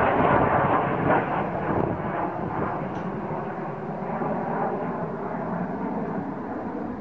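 Jet noise from an F-35A Lightning II's single Pratt & Whitney F135 afterburning turbofan as the fighter flies past and away. The rushing rumble is loudest about the first second, then eases slightly as the jet moves off.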